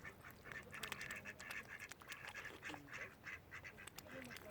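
Mallard ducks quacking: many short calls in quick succession.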